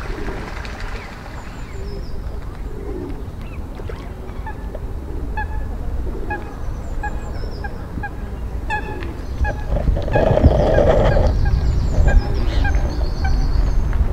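Geese honking: a run of short, repeated honks that grows louder, with the loudest burst about ten seconds in.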